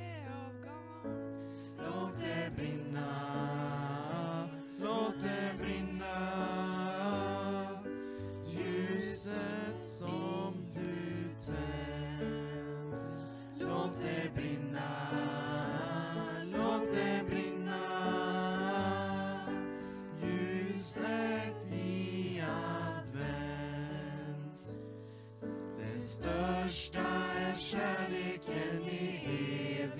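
Small mixed group of male and female voices singing a Christmas song in harmony into microphones, over held keyboard notes.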